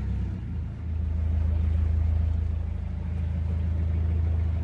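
Narrowboat's inboard diesel engine running steadily with an even low throb, picking up slightly about a second in.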